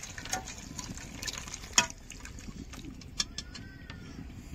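Light clicks and knocks of kitchen utensils against a low background hiss, the sharpest clink nearly two seconds in.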